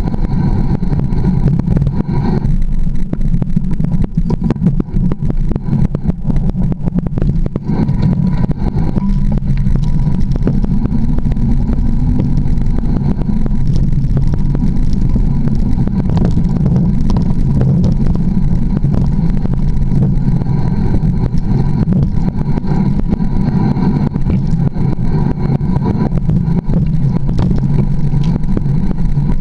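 Mountain bike rolling down a rocky forest singletrack, heard through a fork-mounted camera: a constant low rumble of trail vibration, with many small knocks and rattles as the tyres go over rocks and roots.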